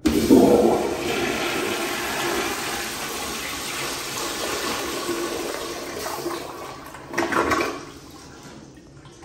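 American Standard Afwall toilet flushing through its flushometer valve: a sudden loud rush of water that runs steadily for about seven seconds, with a brief louder gush near the end before it dies down.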